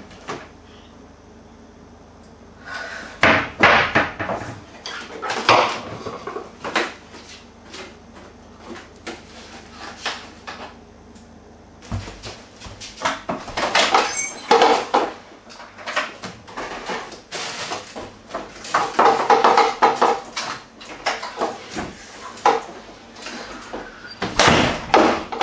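Kitchen cupboard doors opening and shutting, with things knocked and clattered about on shelves and counter in several bursts of knocks and rattles.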